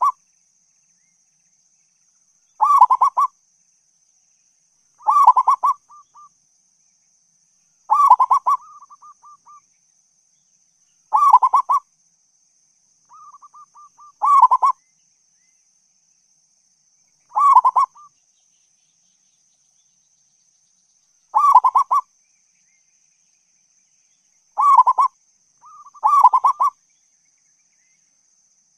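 Zebra dove (perkutut) cooing: a loud ringing coo phrase about every three seconds, about nine in all, some followed or preceded by a short run of soft quick notes. A faint steady high-pitched tone runs underneath.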